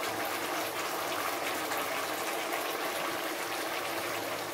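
Thick onion-tomato gravy bubbling steadily in a pan as it is stirred with a wooden spoon; the bubbling shows it is starting to fry (bhunai) in its oil.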